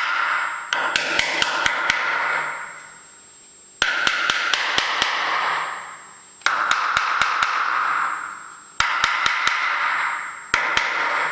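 A small hammer tapping drive rivets home to fix a metal nameplate badge onto the lathe's cast-iron body: quick light blows, several a second, in runs of one to two seconds, each run leaving the metal ringing as it fades.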